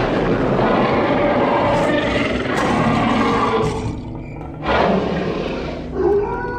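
Growl and roar sound effects from a Tekky 7-foot Howling Werewolf animatronic: a long, rough roar, a break about four seconds in, then a shorter roar. Near the end steady music tones come in.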